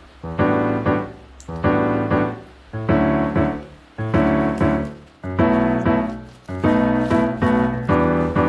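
Background piano music: chords struck about once a second, each dying away before the next.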